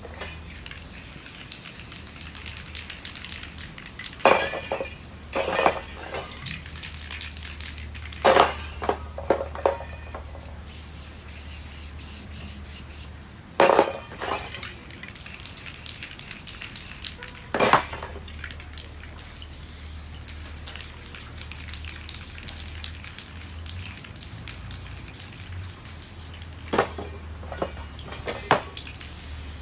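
Aerosol spray-paint cans hissing as paint is sprayed, broken by sharp metallic clinks of the cans knocking together now and then, about eight in all.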